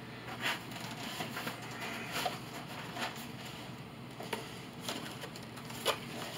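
Packing paper and cardboard rustling and crinkling as they are handled in a shipping box, with a few short sharp crackles, the sharpest about half a second in and just before the end.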